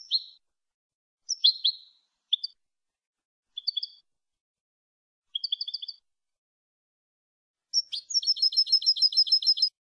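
European goldfinch (jilguero) singing a clean song: short separate phrases of chirps and twitters with silence between them, then near the end a loud, rapid trill of repeated notes at about seven a second.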